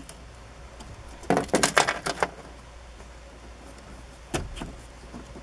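Keys jangling and small plastic clicks as a key presses the tab and lifts the gray locking lever of an instrument-cluster wiring connector: a quick run of rattling clicks about a second in, then a couple more clicks near the end.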